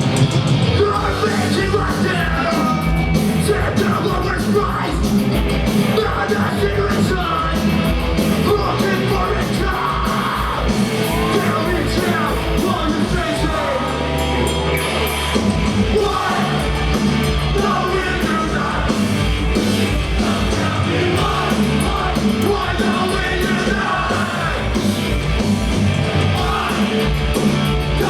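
A punk rock band playing live at full tilt: distorted electric guitars, bass and a fast pounding drum beat, with a singer yelling the vocals.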